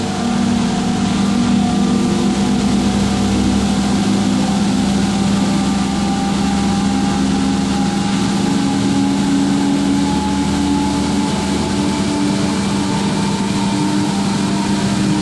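Machinery of the double-decker car ferry ms Prins Johan Friso running steadily: a loud, even hum with several low steady tones, a few of which shift slightly in pitch about halfway through.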